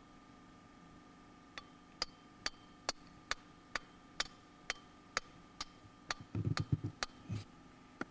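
Sharp metallic strikes at an even pace, a bit over two a second, about a dozen in all, typical of a climber's hammer driving gear into the rock. A few dull thumps come near the end.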